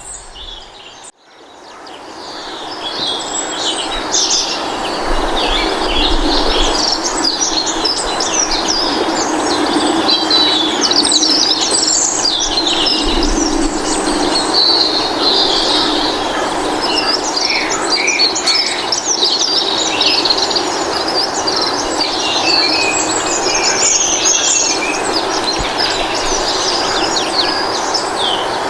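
Many birds chirping and trilling together, as in a recorded birdsong ambience, over a steady background rush. It fades in over the first couple of seconds.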